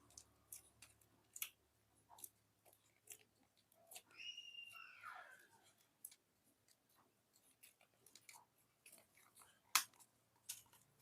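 Faint, scattered wet clicks and crackles. About four seconds in there is a short squeak that slides down in pitch, and the sharpest single click comes near the end.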